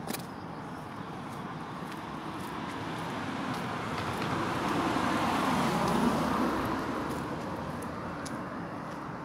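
A car passing on the road, its engine and tyre noise growing louder to a peak about six seconds in, then fading away.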